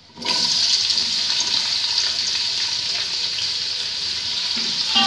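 Sliced onions hitting hot oil with cumin seeds in an aluminium pot, starting a sizzle all at once about a quarter-second in that then runs steadily while they are stirred with a spatula: the start of frying the onions until golden.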